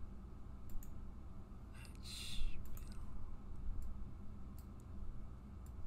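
Computer mouse buttons clicking, mostly in quick press-and-release pairs, every second or so. A short breathy hiss about two seconds in is the loudest sound.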